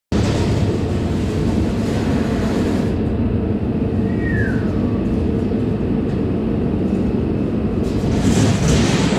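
Angle grinder running under load, grinding down welds on steel plate so the plate can lie flat; the noise starts abruptly and stays loud and steady, with a brief falling squeal about four seconds in.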